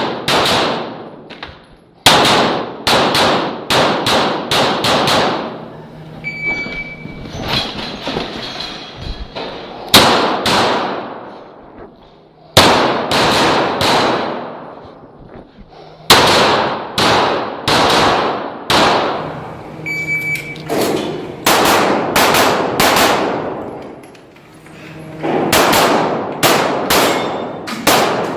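Pistol shots from a CZ Shadow 2 fired in fast strings of two to six, with short pauses between strings as the shooter moves, and metallic clangs from hits on steel targets.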